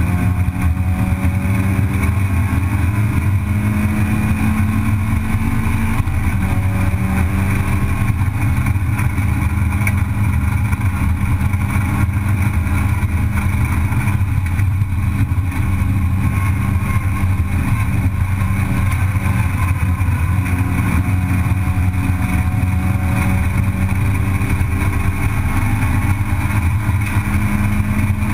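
Race car's engine running at speed on track, heard from inside the cockpit with road and wind noise. The note holds fairly steady, shifting slightly in pitch about six seconds in and again around twenty seconds.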